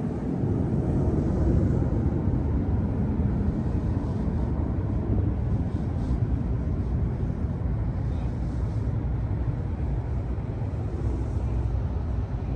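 A truck engine running with a steady low rumble that comes up at the start and holds even.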